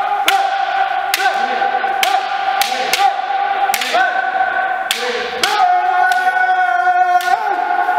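Bamboo shinai strikes cracking about once a second during kendo drills, over continuous kiai shouts from several practitioners; one shout is held long in the second half.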